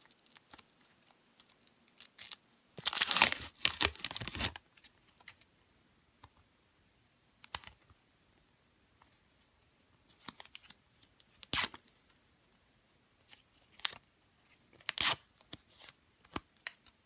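Paper wrapper of an adhesive bandage being torn and peeled open, with a loud ripping stretch about three seconds in, then a few short crinkles as the bandage is handled.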